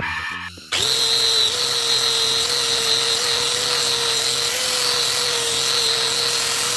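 Angle grinder starting up suddenly, then running steadily as its disc grinds a steel hex nut held in a vise.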